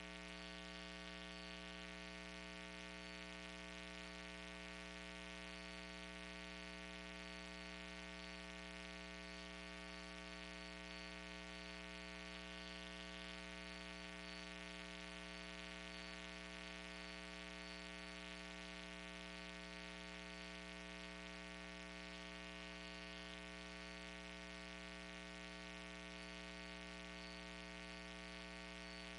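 Steady electrical mains hum, a buzzy drone made of many evenly spaced overtones, with a faint high whine that comes and goes.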